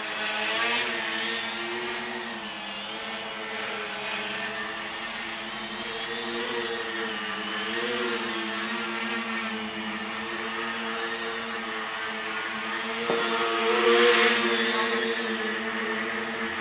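A tricopter's three electric motors and propellers buzzing as it hovers, the pitch wavering slightly as the throttle is worked. The buzz grows louder about fourteen seconds in.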